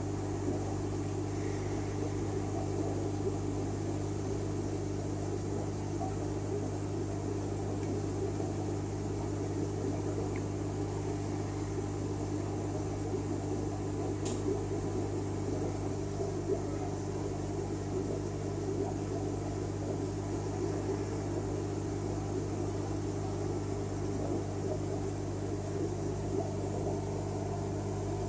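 Steady low mechanical hum of running equipment with a constant pitch, and one faint tick about halfway through.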